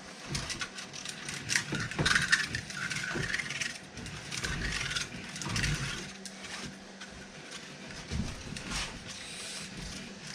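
Spliced 3D printer filament being wound onto a plastic spool: irregular clicks, rattles and rubbing of the filament and spool as it turns.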